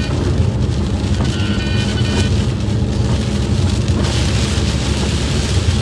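Steady low road and engine rumble of a car driving, heard from inside the cabin, with a hiss coming up about four seconds in.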